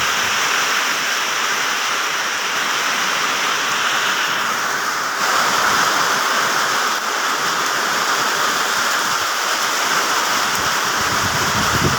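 Steady rain falling on plant leaves, an even hiss of many drops, a little louder from about five seconds in.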